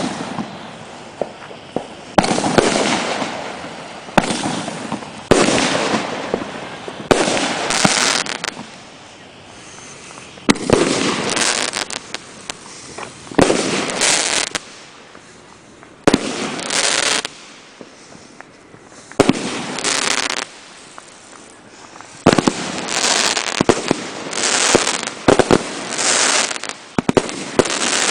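Aerial fireworks going off one after another: sharp bangs, each followed by about a second of crackle and hiss, with short lulls between groups of shells.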